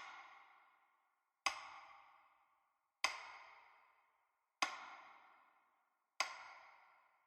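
A struck percussion hit repeated at an even pace, about every one and a half seconds, four times. Each hit rings with a pitched tone and fades away before the next, with dead silence between them.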